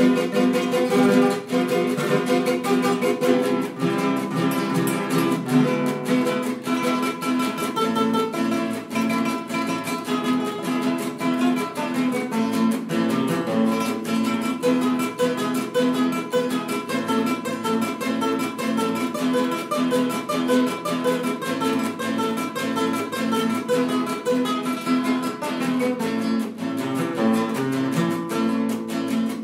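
Instrumental Colombian pasillo played on plucked strings: a guitar and a tiple, picked and strummed in a lilting triple-time rhythm.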